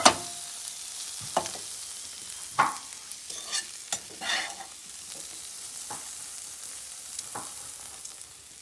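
Green beans sizzling in butter in a pan, with a series of clicks and scrapes of a utensil against the pan as they are lifted out onto a plate; the loudest knock comes at the very start.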